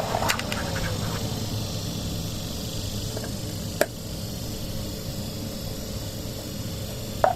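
Steady hum of a running refrigeration compressor and evaporator fan driven by a digital temperature controller, with a short falling tone about half a second in. Three sharp clicks, near the start, about four seconds in and near the end, come as the load is being disengaged; the hum drops slightly after the middle click.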